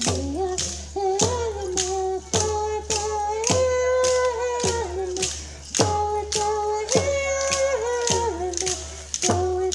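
Ohlone dance song: voices singing held notes that step up and down in pitch, over a sharp percussive beat about twice a second.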